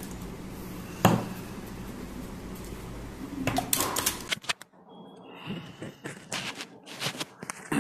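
Handling noise from fitting a Syncc Lav-S8 lavalier microphone: a sharp knock about a second in, then rustling. Near the end comes a run of short, sharp clicks and rubs as the mic is clipped onto a T-shirt collar. The steady background hum cuts out abruptly about halfway through.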